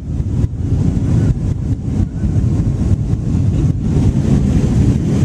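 Loud, steady low rumble of wind buffeting the camera's microphone.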